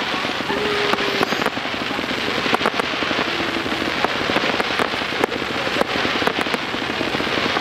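Fireworks going off: a continuous dense crackling of many small bursts, with sharper louder pops scattered through it.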